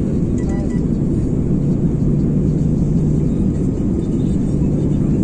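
Airbus A330 cabin noise on final approach: the steady rumble of the engines and rushing air, with a constant low hum running under it, heard from inside the cabin.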